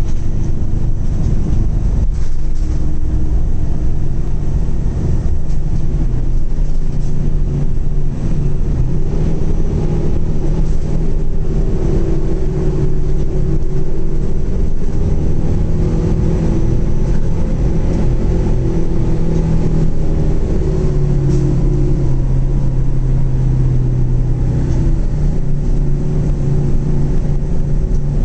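Zhong Tong LCK6107H coach's engine and drivetrain heard from inside the passenger cabin while the coach drives. There is a steady low rumble, and the engine note rises and falls through the middle part.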